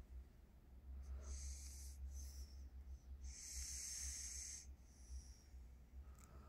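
A sleeping person snoring, each breath a faint, wheezy hiss; the longest breath comes about three seconds in. A steady low hum runs underneath.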